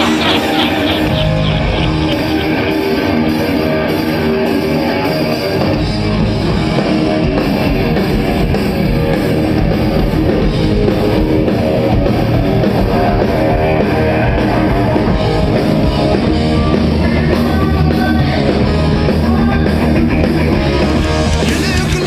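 Rock band playing live, electric guitar, bass and drum kit, loud and steady with no singing; a sound-check run-through.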